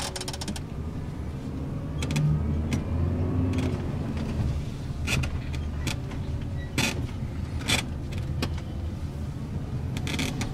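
Engine and road noise heard from inside an ambulance van's cab as it drives off. The low hum grows louder about two seconds in as it speeds up, with a few short knocks and rattles from the van body.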